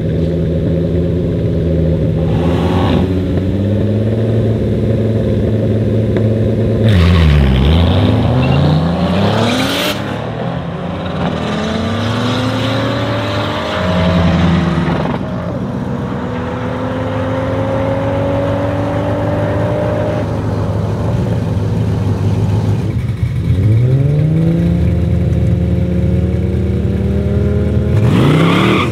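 A Mercedes-AMG C63 S Estate's twin-turbo V8 and a tuned VW Golf idle and rev on a drag-strip start line, then launch about seven seconds in and accelerate hard away, their engine pitch climbing and stepping down at each gear change as they recede. Near the end a second pair of cars revs hard at the start line.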